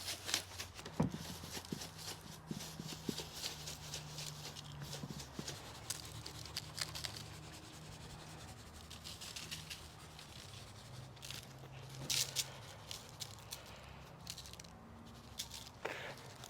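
Light rubbing, rustling and scattered taps of hands seasoning raw turkeys with lemon pepper, over a faint steady low hum.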